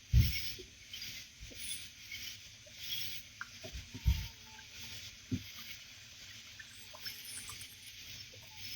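Scattered low knocks and bumps of gear being handled aboard a kayak, the loudest near the start and about four seconds in, over a faint steady high hiss.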